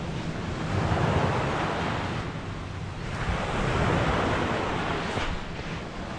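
Wind buffeting the microphone over a steady rush of surf, swelling and easing.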